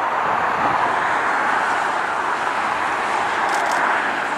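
Steady, even jet-engine roar of aircraft at the airfield, with no distinct events.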